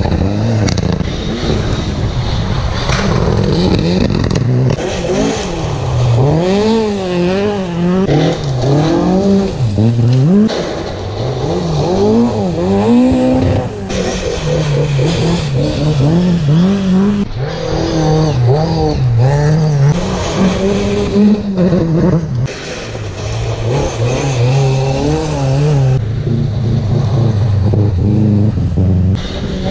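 Rally cars driven hard through a gravel corner one after another, engines revving, the note rising and falling sharply with throttle lifts and gear changes.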